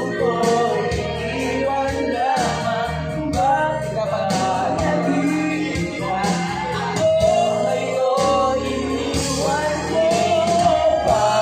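Music: a song sung over instrumental backing, the voice carrying a wavering melody over held bass notes.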